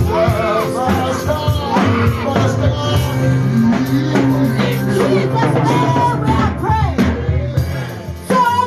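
Music with a singing voice over held bass notes and a drum beat.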